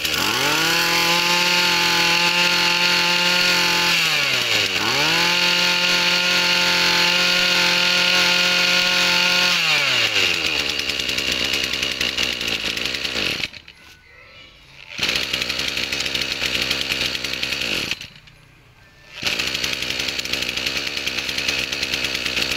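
Makita MEM2300U 23cc two-stroke brush cutter engine revved up to high speed and held there, dropped back briefly, revved and held again, then let fall to idle. While it idles the sound almost drops away twice for a second or so before coming back.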